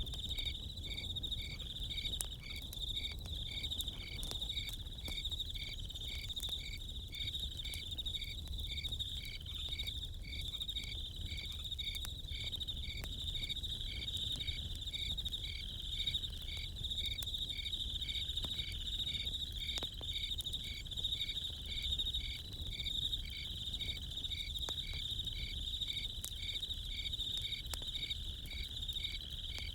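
Crickets chirping in an even pulse, somewhat over one chirp a second, over a continuous higher insect trill, with faint scattered crackles from a campfire.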